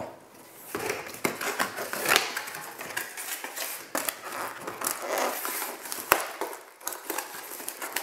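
Cardboard packaging being handled: the flaps and a snug inner box scraping and rustling under the hands, with irregular small knocks and one sharp click about six seconds in.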